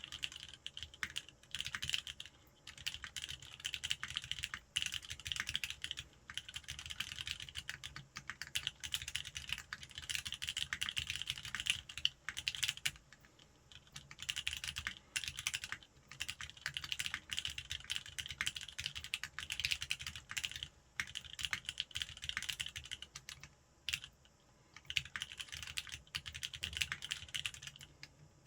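Fast continuous typing on a custom mechanical keyboard with an aluminium plate in a sandwich mount and lubed vintage Wyse Cherry MX Black linear switches: dense runs of keystroke clacks, broken by brief pauses every few seconds.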